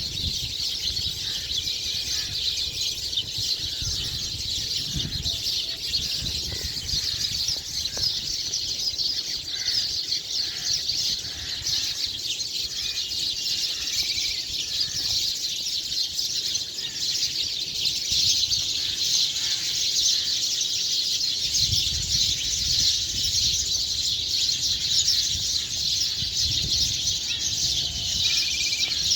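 A dense chorus of many small birds chirping together: a continuous, high-pitched twittering with no breaks.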